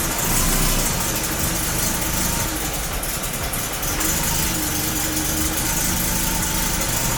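Audi 90 quattro's inline five-cylinder engine running at a steady idle, which the mechanics find set too low.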